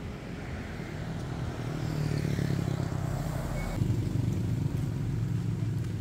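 A motor vehicle's engine running steadily, getting louder about two seconds in.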